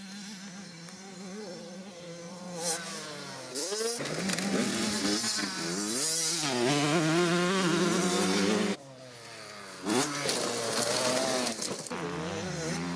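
Small minicross dirt bike engine revving, its pitch rising and falling repeatedly as the rider accelerates and eases off. The sound drops out suddenly about two-thirds of the way through and comes back a second later.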